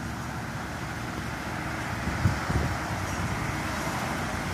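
Street traffic noise from passing road vehicles, growing louder in the second half as a car approaches, with brief low rumbles of wind on the microphone.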